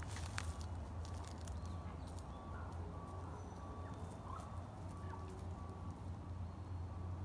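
Faint outdoor ambience: a steady low rumble, a thin high note repeating at even intervals, and a few faint chirps. There are a couple of small sharp clicks right at the start.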